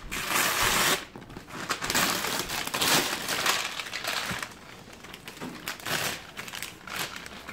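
Christmas wrapping paper being torn and crumpled off a cardboard gift box, in several rustling rips.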